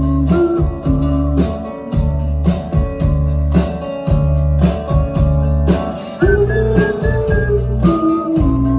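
Live indie rock band playing an instrumental passage between verses: drums and bass keep a steady beat under a held lead melody with small slides.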